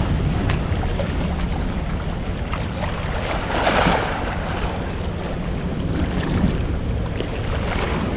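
Wind buffeting the microphone over water washing at the shore, with one louder rush of noise about halfway through.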